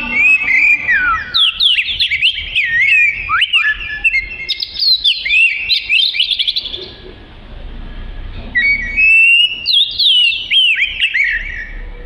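Oriental magpie-robin (kacer) singing vigorously: rapid runs of varied whistles and chirps in two bouts, with a short pause about seven seconds in before the second bout.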